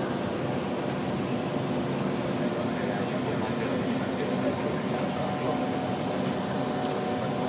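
Steady flight-deck noise of an airliner climbing after takeoff: an even rush of air and ventilation under a low, steady hum.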